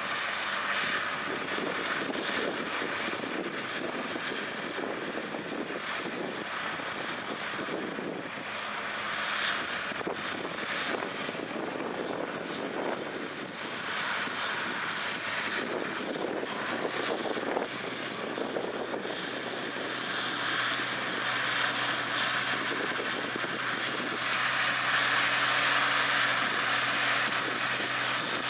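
Allis-Chalmers farm stock pulling tractor's engine running hard under load as it drags a weight-transfer sled. It makes a steady drone that grows louder over the last few seconds as the tractor comes closer.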